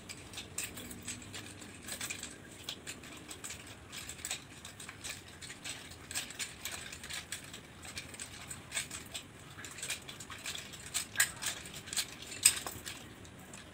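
Nunchaku being swung in practice, its chain and sticks rattling and clacking in quick, irregular sharp clicks, with two louder clacks near the end.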